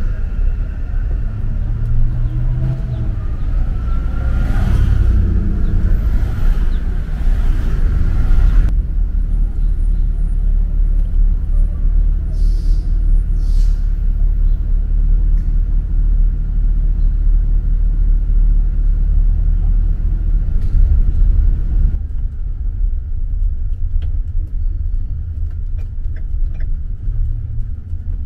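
City street traffic: a steady low rumble of vehicles, with one vehicle passing louder about four to six seconds in. The sound changes abruptly twice, about nine and twenty-two seconds in.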